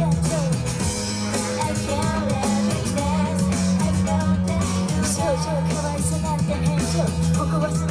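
Female dance-vocal group singing a pop-rock song live into handheld microphones over loud band-style accompaniment with a steady bass line and drums, heard in a small club.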